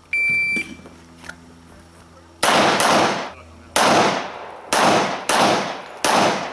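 Electronic shot timer gives its half-second start beep. About two seconds later a handgun fires a string of about six sharp shots, spaced roughly half a second to a second apart.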